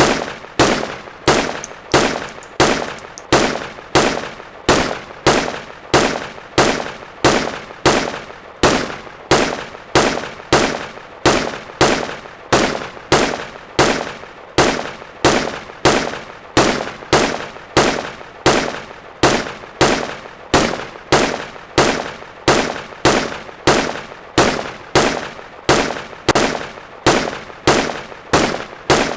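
M1 Garand .30-06 semi-automatic rifle firing a long, steady string of shots at about two a second, each a sharp crack with a short ringing tail.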